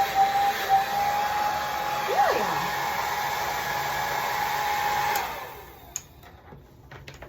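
Conair blow dryer running with a steady whine over its rush of air. It is switched off about five seconds in and winds down quickly, and a few faint clicks follow.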